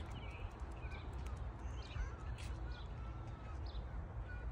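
Small birds chirping in short calls over a steady low rumble, with light footsteps on a concrete sidewalk.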